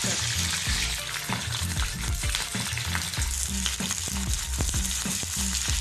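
Green capsicum pieces sizzling hard in hot oil in a steel kadai, a dense steady hiss. Frequent short clicks and scrapes of stirring against the pan run through it.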